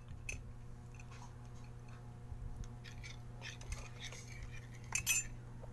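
A metal spoon clicking and scraping against a plate of rice as a small child eats, with a sharper clatter about five seconds in. A steady low hum runs underneath.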